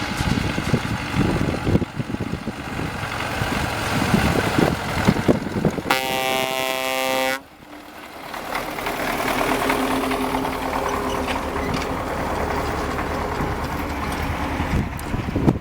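Farm machinery running with rattling and knocking, and a vehicle horn sounding for about a second and a half about six seconds in, cutting off abruptly; afterwards the engine noise dips and builds again.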